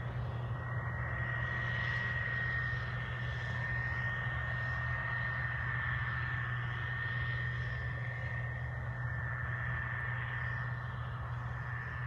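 Combine harvester and tractor with grain cart harvesting corn, heard from a distance: a steady engine drone with a steady high-pitched whine over it.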